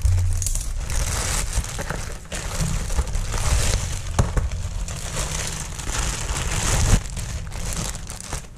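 Plastic mailer bag and a clear plastic bag crinkling and rustling as they are handled, with one sharp knock about seven seconds in.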